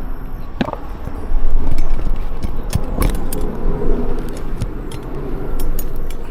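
Scattered clicks and jangling rattles, like gear being handled, over a steady low rumble, louder for about half a second just over a second in.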